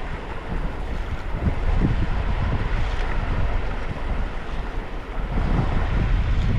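Wind buffeting the microphone: a rumbling, uneven rush that rises and falls.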